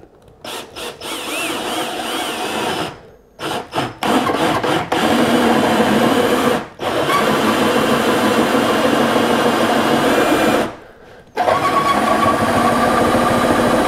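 Cordless drill boring a hole through a kayak's plastic hull. It runs in several stretches: short stop-start runs at first, then long steady runs with a brief stop about ten and a half seconds in.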